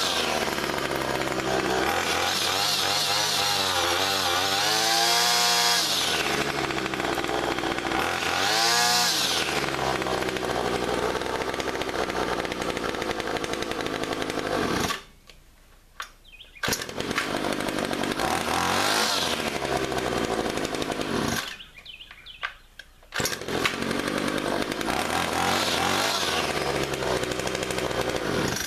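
Two-stroke gas string trimmer engines running and being revved up and down. The engine sound cuts off abruptly twice and picks up again a second or two later.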